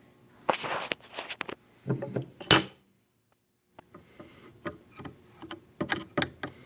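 Handling noise while taking apart a wooden antique balance: irregular knocks, clicks and scrapes of tools and small parts, the loudest a sharp knock about two and a half seconds in, broken by a moment of dead silence just after it.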